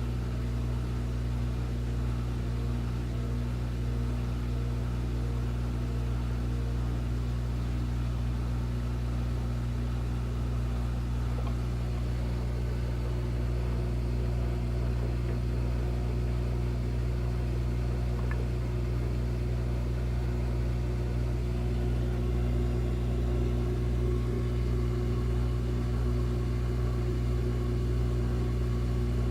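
Washing machine that won't spin, running with a steady low motor hum. A faint higher whine drops out about seven seconds in, and a slightly lower tone comes up in the second half.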